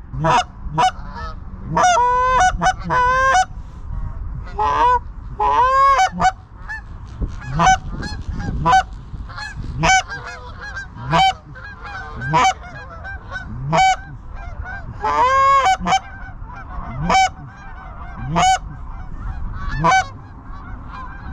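Canada geese honking and clucking: a steady series of calls about one a second, with a few quick runs of rapid honks.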